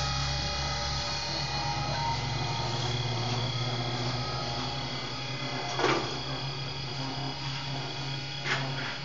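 CNC EPS foam cutting machine running: a steady electrical hum with several whining tones, broken by two sharp clicks, about six seconds and eight and a half seconds in.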